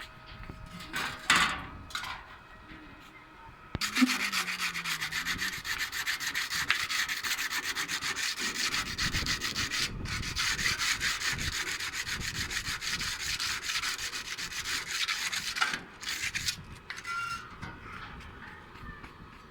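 Stick (arc) welding with a 6013 electrode on thin iron: the arc crackles steadily and densely, starting about four seconds in and cutting off after about twelve seconds.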